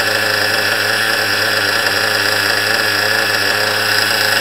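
Small nitro glow engine of an HPI RS4 3 Evo RC car idling steadily, running on 20% nitro fuel with its carburettor set back to the factory setting.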